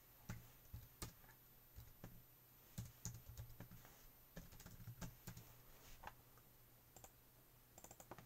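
Faint, irregular keystrokes on a computer keyboard, typing at an uneven pace.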